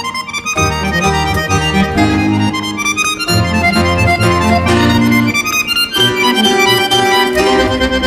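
Background music led by an accordion, playing sustained chords over a pulsing bass line.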